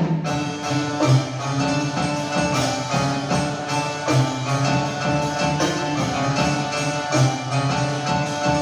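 Instrumental music with a steady beat, several pitched instruments playing over regular percussion strokes.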